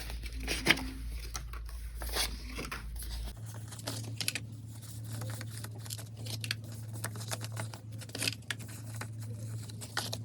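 Paper banknotes being handled and counted: irregular rustling, crinkling and flicking of bills.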